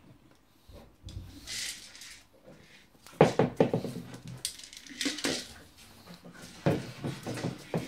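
Plastic dog treat ball being nosed and pawed across a tile floor, clattering and rattling in three short spells of rapid clicks, the loudest about three seconds in.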